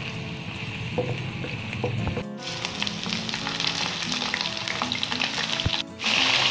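Oil sizzling in a steel pot as sliced onions fry and are stirred with a wooden spatula. Minced meat then sizzles as it is stirred into the browned onions, and the sizzling grows louder after a brief break near the end.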